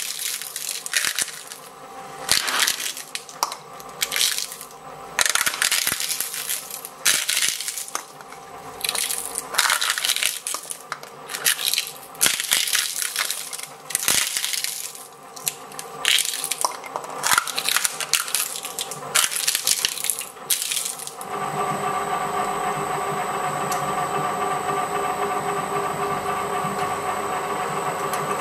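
Twin-shaft industrial shredder crunching crisp wafer ice-cream cones between its steel cutters, in irregular bursts for about twenty seconds. The crunching then stops abruptly and the empty shredder runs with a steady hum.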